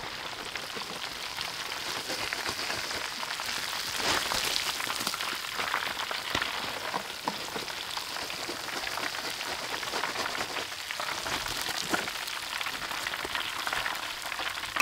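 Hot deep-frying oil sizzling with a dense, steady crackle, from chicken legs fried crisp.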